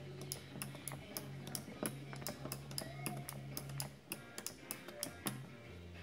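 Promet industrial joystick being worked by hand: its switch contacts click sharply, several times a second, as the lever is pushed between positions.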